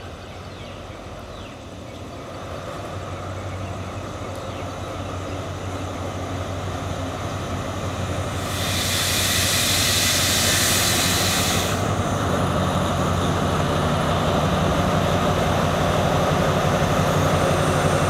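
Alsthom ALS diesel-electric locomotive with an MTU engine approaching with a passenger train, its engine hum growing steadily louder as it nears. About two-thirds of the way in, a loud hiss lasts about three seconds.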